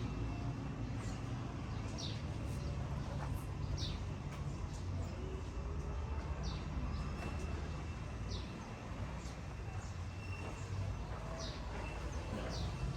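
A bird chirping: short, high, falling chirps repeated about once a second, over a low background rumble.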